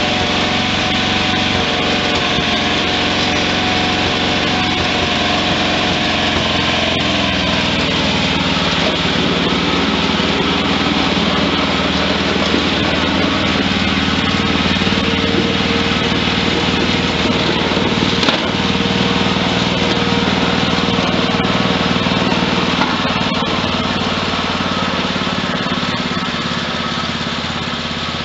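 1963 Wheel Horse 633 garden tractor's engine running steadily; its note changes about eight seconds in as the tractor moves off, and it grows fainter near the end.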